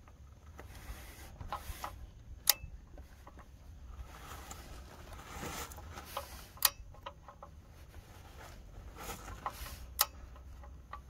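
Click-type torque wrench on a 15 mm socket tightening the oil drain plug: three sharp metallic clicks about four seconds apart as the wrench reaches its set torque, with fainter ticks between.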